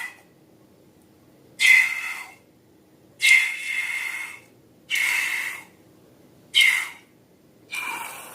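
Air squealing out of a balloon's stretched neck in five short squeaky bursts, about one every second and a half.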